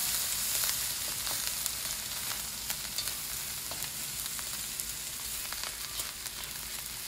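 Shrimp, scrambled egg and peas stir-frying in oil in a wok over medium-high heat: a steady sizzling hiss, with scattered light clicks and scrapes of a slotted spatula stirring against the pan.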